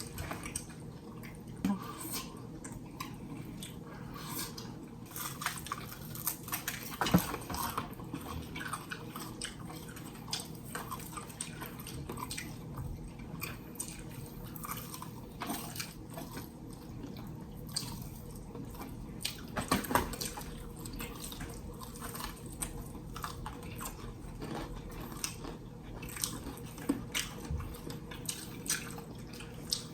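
Close-up eating sounds of fried chicken: crunchy bites into the crispy coating, wet chewing and lip smacks, coming as irregular crackles and clicks, with a louder crunch about seven seconds in and again near twenty seconds.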